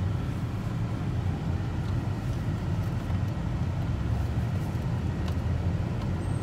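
Steady low rumble of engine and road noise inside a pickup truck's cabin.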